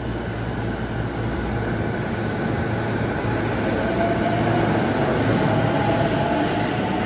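JR East E233 series electric commuter train pulling out and accelerating along the platform. The running noise of the cars builds steadily, and about four seconds in a rising whine comes in over it.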